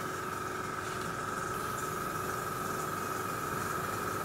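Small airbrush compressor running steadily with a constant high whine, under the hiss of air from an airbrush spraying paint.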